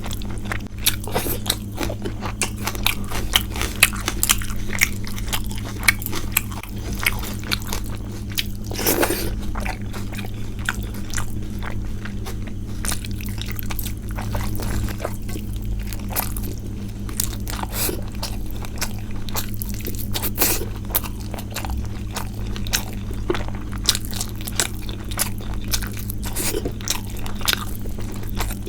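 Close-miked eating sounds: a person chewing and biting, with frequent crunches and wet mouth clicks, over a steady low hum.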